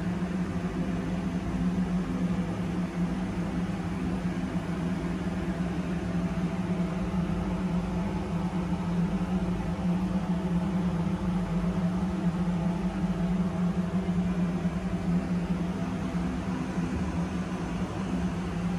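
Steady low machinery hum with a strong drone near 200 Hz, unchanging throughout, with no distinct knocks or clicks.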